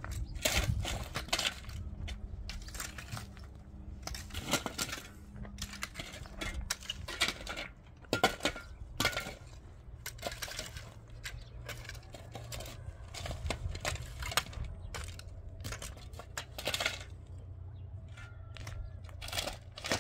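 A metal shovel and rake scraping and striking stony soil and gravel, with irregular clinks and scrapes of steel on stones.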